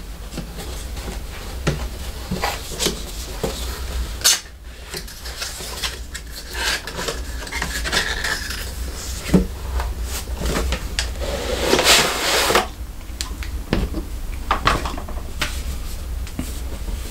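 Cardboard Funko Pop box being opened and its plastic-wrapped insert handled: scattered clicks, taps and scrapes of cardboard and plastic, with a longer rustling scrape about twelve seconds in.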